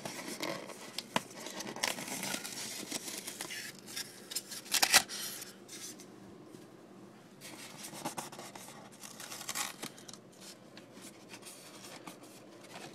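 Packing tape being undone from a cardboard product box: irregular tearing, scraping and crinkling of tape and packaging, with one louder sharp snap about five seconds in.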